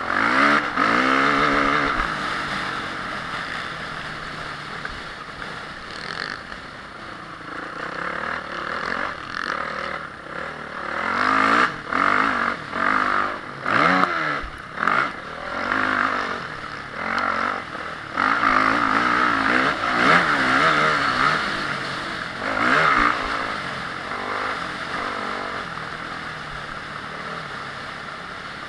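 Honda CRF450R's single-cylinder four-stroke motocross engine revving up and down as the throttle is worked on a race track. Through the middle come several quick throttle chops and pick-ups in a row.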